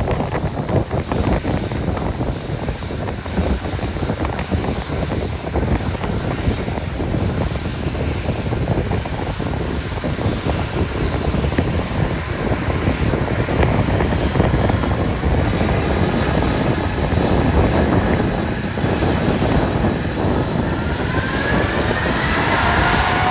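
Jet airliner engine noise with wind buffeting the microphone; near the end a rising turbine whine comes in as the aircraft draws closer.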